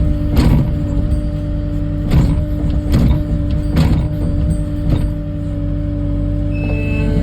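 Kubota skid-steer's diesel engine running steadily, with five sharp clanks in the first five seconds. Its reversing alarm starts beeping near the end.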